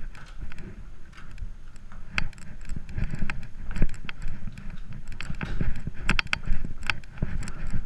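Footsteps on a hard floor, irregular sharp taps, over a low rumble of clothing rubbing against a body-worn camera.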